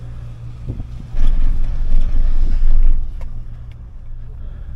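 Doppelmayr detachable eight-seater chairlift running on its haul rope, with a steady low hum. A loud low rumble lasts about two seconds, as the chair passes the first tower's sheave train.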